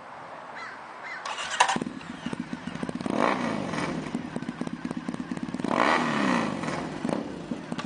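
A 2013 Triumph Thruxton's 865cc fuel-injected parallel twin, fitted with a British Customs stainless steel exhaust, is started about a second and a half in. It then idles and is revved twice, each blip rising and falling in pitch.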